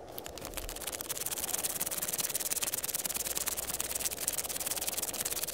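Sci-fi electrical static sound effect: dense crackling hiss made of rapid fine clicks, setting in at once and growing louder over the first two seconds, over a low rumble.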